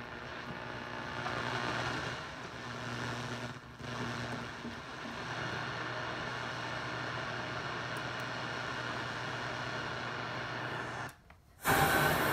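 Sansui G-3000 stereo receiver's FM tuner being tuned across the band, giving a steady hiss of weak, noisy reception through its speakers. It cuts out for a moment near the end, then comes back as louder, brighter static between stations.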